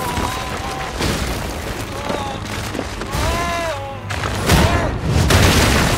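Cartoon fight sound effects: a man's wordless strained cries and grunts, then heavy impacts of a head being smashed into a crystal floor from about four and a half seconds in, the loudest near the end.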